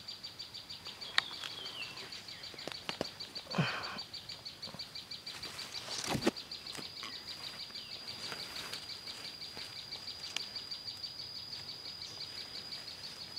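Footsteps and brushing through grass and leafy undergrowth, with scattered rustles and knocks, the loudest about three and a half and six seconds in. Under it runs a steady, high, rapidly pulsing trill.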